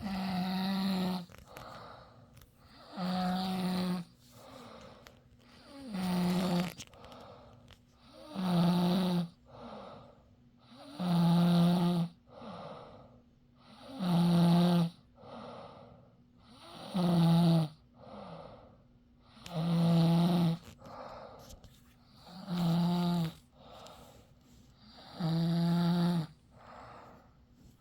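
Steady, rhythmic snoring: a loud, pitched snore about every three seconds, ten in all, each followed by a quieter breath.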